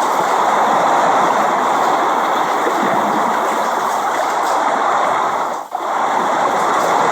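Steady rain falling, a dense, even hiss, with a brief sudden drop in level about five and a half seconds in.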